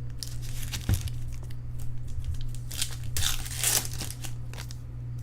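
A pack of 2013 Bowman Draft baseball cards being torn open, its wrapper tearing and crinkling in several irregular bursts, with a knock about a second in. A steady low electrical hum runs underneath.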